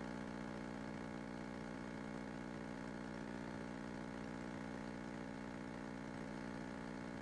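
The four-cylinder Lycoming engine and propeller of a 1970 Cessna 172K droning at a steady, unchanging pitch, heard faintly.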